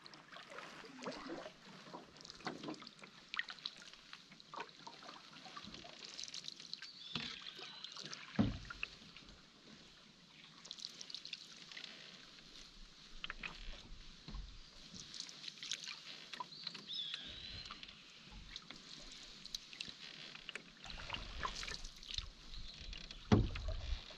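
Canoe paddling: paddle strokes and water splashing and dripping, with occasional knocks of the paddle against the hull, the loudest about 8 seconds in and near the end. A bird gives short, high, falling calls a few times.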